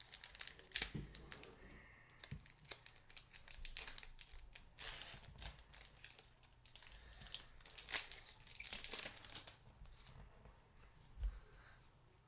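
Foil wrapper of a Pokémon trading card booster pack being torn open and crinkled by hand: an irregular run of crackles and rustles, loudest about five and eight seconds in.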